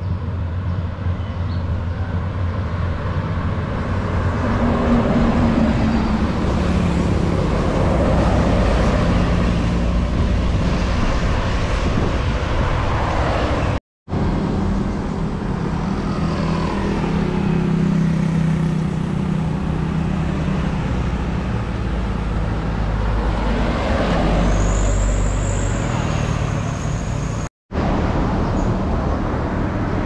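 Large tour buses passing along a road: deep diesel engine rumble and tyre noise swelling as each one approaches and goes by. A thin high whistle sounds for a couple of seconds near the end, and the sound cuts off abruptly twice.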